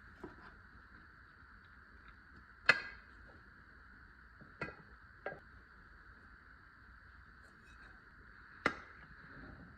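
Four sharp knocks and clinks of ceramic cookware being handled and set down, such as pots and lids, over faint steady background noise. The loudest knock comes about three seconds in and another strong one near the end.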